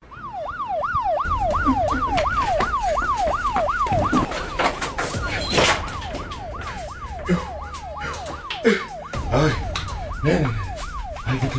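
Emergency-vehicle siren in a fast up-and-down yelp, about three sweeps a second, loud at first and fading after about four seconds. Scattered knocks and clicks and a low rumble run under it.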